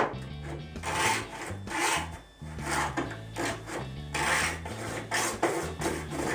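Hacksaw cutting through a grey plastic (PVC) overflow pipe: rasping back-and-forth strokes, one to two a second.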